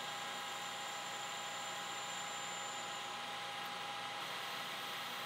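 Metal lathe running with a carbide insert facing the end of an O1 tool steel bar in the chuck: a steady cutting hiss over the machine's constant whine.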